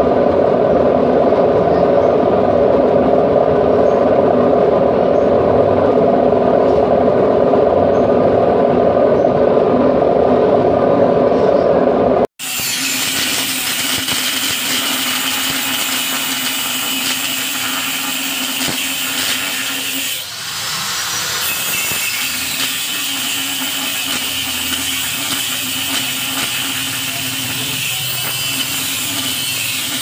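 LG front-loading washing machine running with water and suds in the drum, a steady drone. About twelve seconds in it cuts off abruptly, giving way to a handheld electric power tool running steadily with a strong hiss and a low hum, which falters briefly partway through.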